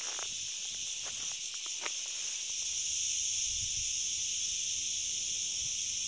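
Steady, high-pitched chorus of insects buzzing in a pine forest, with a few faint taps in the first two seconds.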